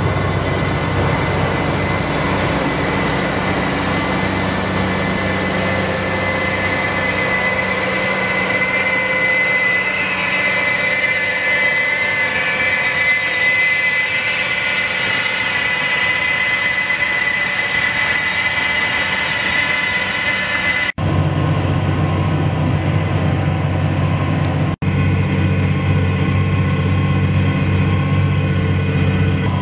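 Tractor engine running steadily under load while pulling a potato planter, with a deep hum and a steady higher whine. It breaks off for a moment twice in the second half and comes back with a stronger low hum.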